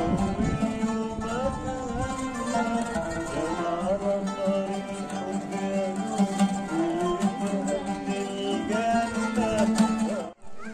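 An oud and a qanun play a quick plucked melody together. The music cuts off abruptly just before the end.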